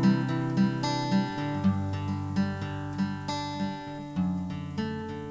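Background music of acoustic guitar, plucked and strummed notes ringing out in a steady rhythm.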